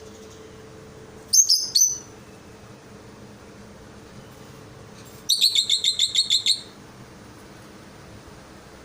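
A small bird chirping: a quick double chirp about a second in, then a fast run of about a dozen high, evenly spaced chirps around five seconds in.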